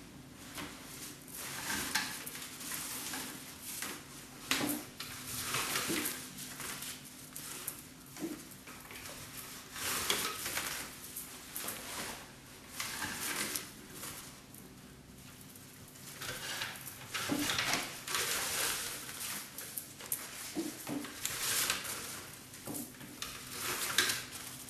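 Fiber rush, a twisted paper cord, rustling in irregular bursts as a loose coil of it is passed around a chair seat's rails and pulled through the weave. A faint steady hum runs underneath.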